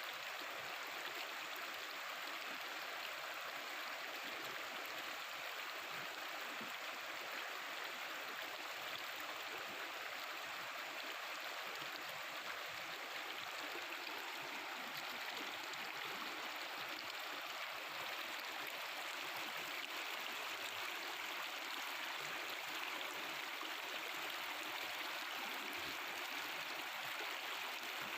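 Mountain river water babbling and rushing over rocks, a steady, even flow.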